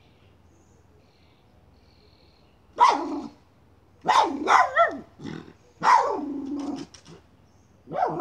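Miniature schnauzer barking and growling in excited bursts, starting about three seconds in, while it digs at a pipe where a chipmunk is hiding.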